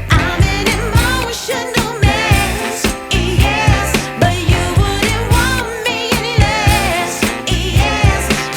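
Pop song with a sung vocal over a steady beat and bass.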